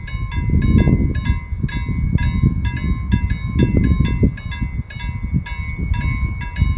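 Music with a quick ticking beat and bell-like tones, over a low, uneven rumble.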